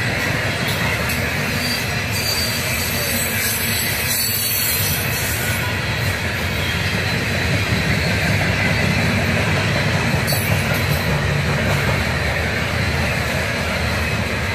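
CSX coal hopper cars rolling past, their steel wheels running on the rails in a steady rumble that swells slightly about eight seconds in.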